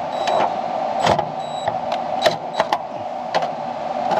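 Scattered sharp clicks and taps from hands working on the air conditioner's run capacitor and its wire terminals, about one a second, over a steady mechanical hum.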